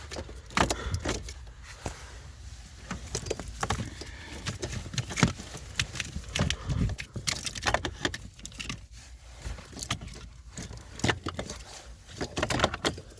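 Irregular clicks and rattles of plastic wiring-harness connectors being handled and plugged back in, over a steady low hum.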